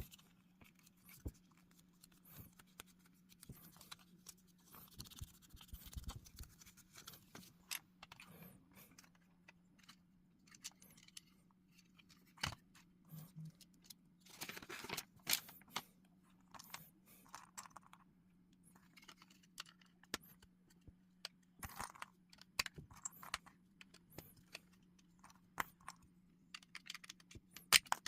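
LEGO plastic bricks being handled and snapped together: scattered small clicks and clatters, with a longer rustling, scraping stretch about halfway through.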